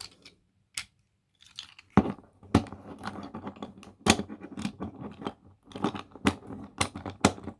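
Small plastic Transformers toy (Optimus Prime) being twisted and folded by hand, with irregular sharp plastic clicks and snaps as its joints and panels lock into place, between soft rustling handling.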